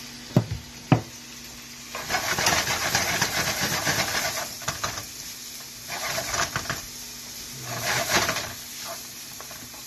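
Onions and garlic sizzling in hot oil in a frying pan as they are stirred, coming in three loud bursts, the first about two seconds in and lasting a couple of seconds. Two sharp knocks come within the first second.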